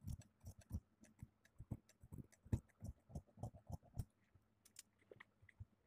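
Tailor's scissors snipping through printed blouse fabric, trimming off the excess: a faint quick run of short snips, about three or four a second, that thins out and stops after about four seconds.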